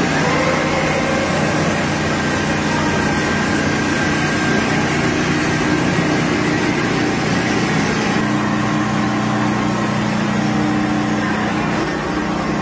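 Machinery of a sawdust drying line running: a steady motor and blower hum with several low steady tones, which shift slightly about eight seconds in.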